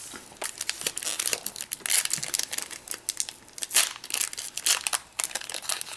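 Foil Yu-Gi-Oh booster pack wrappers crinkling and tearing as packs are handled and ripped open: a rapid, uneven string of sharp crackles.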